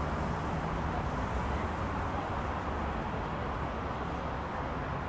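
Steady rumble of freeway traffic mixed with an electric suburban train running along the median tracks, with no single sound standing out.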